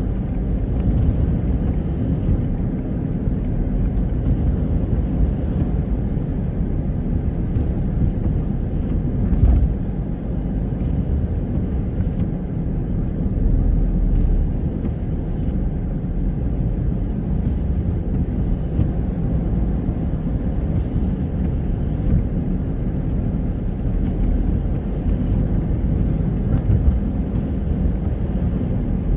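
Car driving steadily along a road, with a continuous low engine and tyre rumble.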